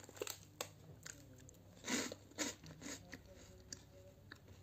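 A crisp barnyard-millet rusk cracking and crumbling as it is broken apart by hand: a few short, dry crunches, the loudest about two seconds in.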